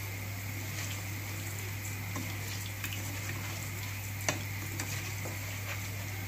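Rice and chopped peppers sizzling in a stainless steel pot while a spoon stirs them, with small scrapes and taps of the spoon on the pot and one sharper tap about four seconds in. A steady low hum runs underneath.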